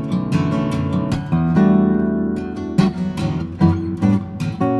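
Background music: acoustic guitar, plucked and strummed, with chords changing every second or so.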